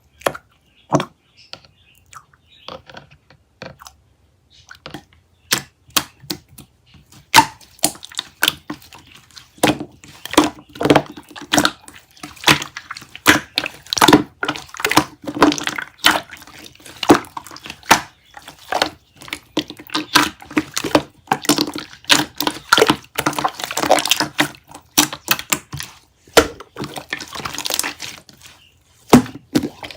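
Chocolate-ice-cream slime being squished and pressed by hand, giving sticky crackling and popping clicks. The clicks are sparse at first, then come thick and fast from about seven seconds in.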